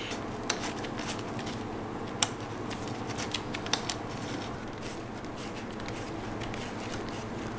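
Light clicks, taps and rustling of gloved hands handling rubber motorcycle handlebar grips and a small hand tool, with a few sharper ticks, over a faint steady hum.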